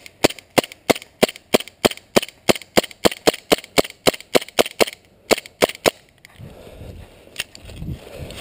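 KJWorks M9A1 CO2 gas-blowback airsoft pistol firing about twenty shots in quick succession, roughly three a second, each a sharp crack with the slide cycling. The shots stop after about six seconds, followed by footsteps rustling through dry leaves and brush.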